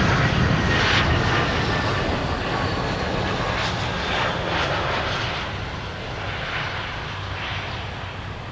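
Airbus A320 jet airliner passing close on its landing, the engines at low approach power, loudest at first and then fading steadily as it touches down and rolls away down the runway.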